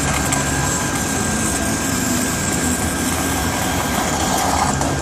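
Oxygen lance burning a hole through a steel shaft: a steady, unbroken rushing noise as the steel burns away.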